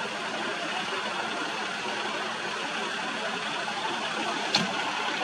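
Medical helicopter in flight, its turbine engines and rotors making a steady noise. One short sharp click about four and a half seconds in.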